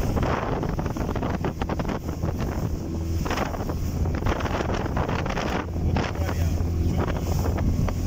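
Mercury F20 four-stroke outboard driving a small fibreglass boat at speed: a steady low engine drone under heavy wind buffeting on the microphone and the rush of water along the hull.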